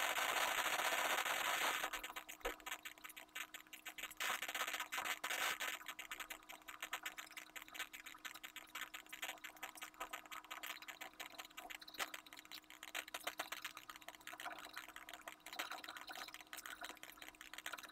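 Pencil scratching on paper in many short, quick strokes, louder and steadier for the first two seconds and again about four to five seconds in.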